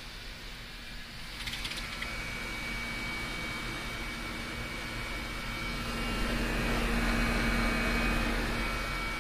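Two Trane XB13 5-ton central air conditioner condensing units running: a steady rush of fan air with a low hum and a thin high whine. The whine comes in about a second and a half in, and the sound swells louder in the middle before easing near the end.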